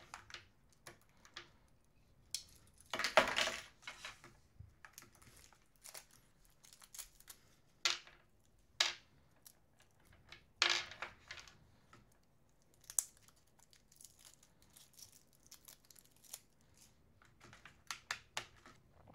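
Plastic battery wrapping crinkling and tearing, with scattered light clicks and taps as AAA batteries are handled and fitted into a graphing calculator's battery compartment. The longest and loudest rustle comes about three seconds in.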